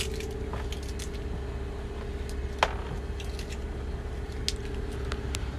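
Scattered light clicks and rustles of items being handled and thrown out, with one sharper knock about two and a half seconds in, over a steady low hum.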